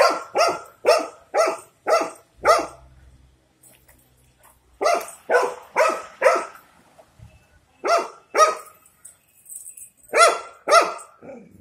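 A dog barking at a cow it is facing, in four volleys of short, loud barks with pauses between: about six barks, then four, then two, then two more fading at the end.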